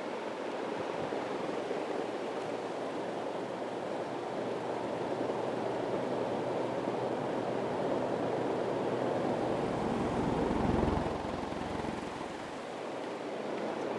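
1983 Casablanca Four Seasons ceiling fan running, a steady rush of moving air, with a low rumble swelling about nine to eleven seconds in.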